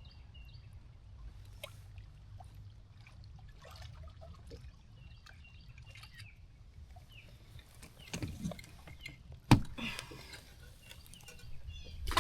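Faint outdoor quiet with small bird chirps and a few light rustles and knocks, then one sharp knock about nine and a half seconds in.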